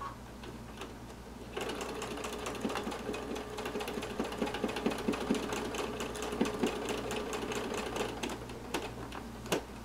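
Home sewing machine doing free-motion straight stitching through embroidery on a cap: it starts about a second and a half in and runs for about six seconds, a rapid patter of stitches over a steady motor hum, then stops. A single sharp click near the end.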